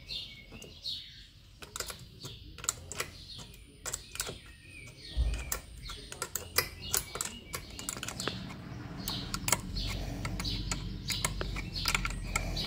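Irregular small metallic clicks and taps of washers, bolts and a tool as a Yamaha 25 HP outboard's carburetor is bolted back in place, with birds chirping in the background.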